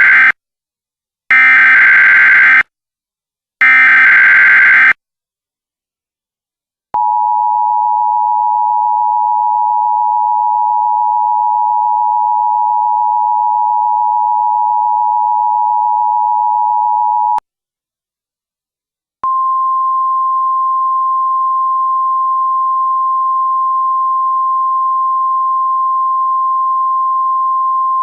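Emergency Alert System signalling: three harsh, buzzy SAME digital header bursts of about a second and a half each, then the two-tone EAS attention signal held steadily for about ten seconds, and after a two-second pause the single-tone NWS 1050 Hz weather radio alert tone, held steadily.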